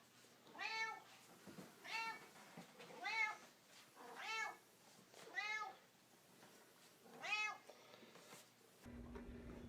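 A cat meowing over and over: six meows about a second apart, each rising and then falling in pitch.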